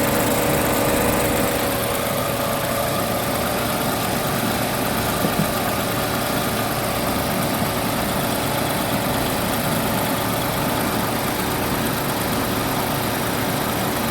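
Car engine idling steadily with the air conditioning running, as during a refrigerant top-up of the AC system.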